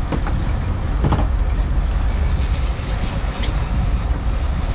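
Sportfishing boat's engines running with a steady low rumble, mixed with rushing water from the wake. A higher hiss joins about two seconds in.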